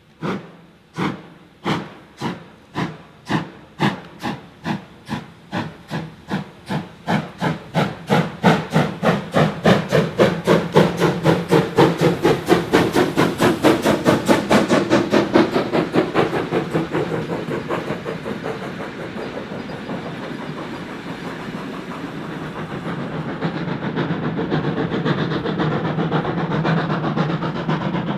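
Steam tank locomotive 75 1118 (Baden class VI c, built 1921) working away under load. Its exhaust beats quicken from about one a second to a rapid, loud beat. After about seventeen seconds they blur into a steadier, duller running sound.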